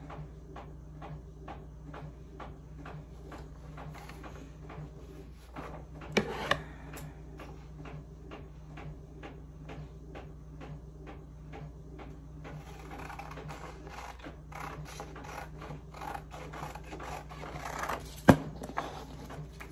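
Scissors snipping through a sheet of sublimation transfer paper as the print is trimmed to size, a steady run of short snips about two to three a second over a low steady hum. A couple of louder knocks come about six seconds in and a sharp one near the end.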